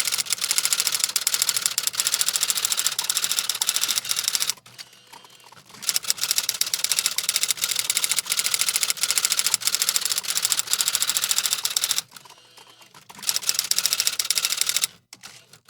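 Fast typing on a computer keyboard: rapid, continuous keystroke clicks in three runs, broken by two short pauses of about a second each and stopping shortly before the end.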